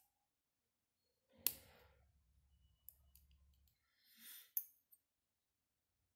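Small plastic and metal parts of a car phone charger clicking and rustling as they are fitted back together by hand: a sharp click about one and a half seconds in, a softer one a little later, and another sharp click near the end, with long quiet gaps between.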